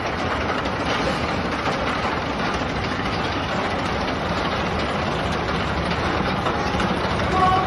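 Steel roller coaster train running along its track, a steady rumble of wheels on the rails.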